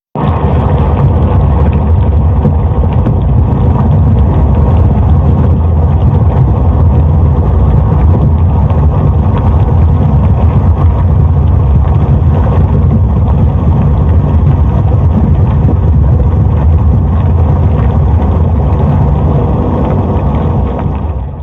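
Volcanic activity: a loud, deep, continuous rumble that starts abruptly and holds steady, then begins to fade near the end.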